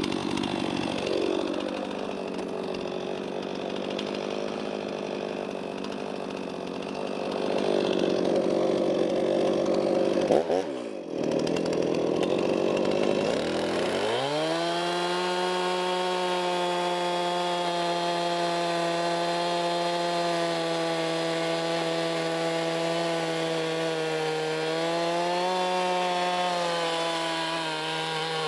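Stihl MS311 two-stroke chainsaw cutting through a white oak log, the engine labouring at a rough, lower pitch. It dips briefly about eleven seconds in, then from about halfway it settles into a steady, higher-pitched run.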